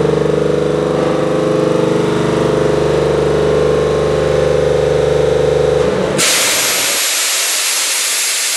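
Tanabe H-373 marine air compressor running steadily on test. About six seconds in the running sound stops and a loud, steady hiss of compressed air being released takes over.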